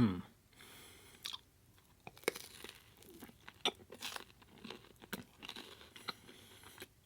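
Crusty, buttered garlic bread sticks crunching and crackling in irregular crisp snaps.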